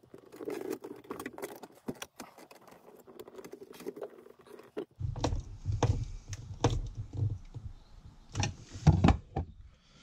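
Small clicks and rattles of cable ends and tools being handled as wires are fastened into the terminals of an MPPT solar charge controller. A low rumble comes in about halfway, with a couple of louder knocks near the end.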